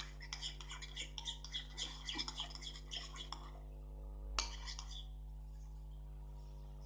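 A spoon stirring slime in a bowl, with quick clinks and scrapes against the bowl. The stirring stops about three and a half seconds in, followed by one sharper clink a second later.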